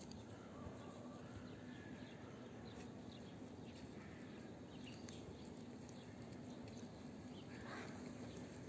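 Faint, scattered chirps of small birds over a low steady hum.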